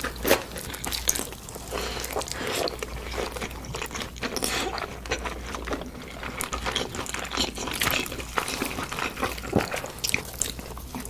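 Close-miked eating: irregular crunching bites and chewing of chicken and pork.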